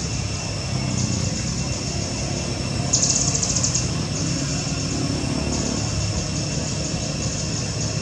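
Outdoor ambience: a steady high-pitched pulsing buzz, rising to a louder burst about three seconds in, over a low rumble like a distant running engine.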